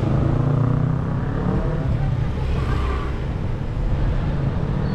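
Engine of the vehicle carrying the camera running steadily as it drives along a street, with constant low road and wind rumble and a slight rise and fall in engine pitch.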